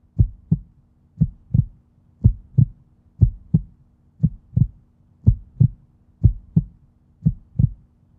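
Heartbeat sound effect: steady paired lub-dub thumps, about one pair a second, over a faint low hum.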